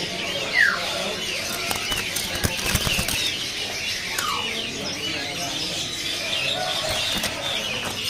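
A caged green barbet fluttering its wings and knocking about inside a bamboo cage, with a few knocks. Many other caged birds twitter steadily behind it, and two short falling whistles come through, one near the start and one about halfway.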